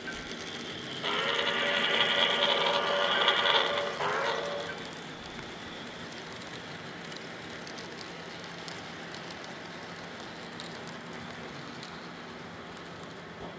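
A sound-equipped model steam locomotive blows its chime whistle through its onboard speaker: one long blast lasting about three and a half seconds, starting about a second in. It is followed by the steady running noise of the model passenger train rolling past on the track.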